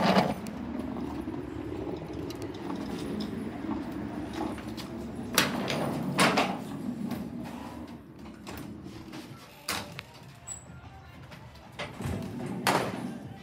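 Glass entrance doors being opened and let close, with sharp clunks about five and six seconds in and again near the end, over a steady low rumble that drops away about eight seconds in.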